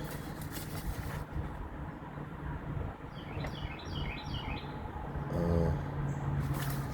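A bird chirping a quick run of short high notes about three seconds in, over a steady low hum.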